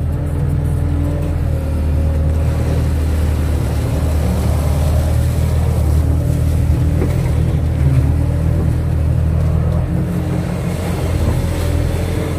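Kato crawler excavator's diesel engine running steadily at working speed, its note rising and dipping a little as it works.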